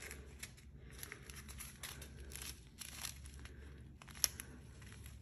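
Small plastic zip-lock bags of diamond painting drills crinkling faintly as they are picked up and handled, with one sharp tick a little over four seconds in.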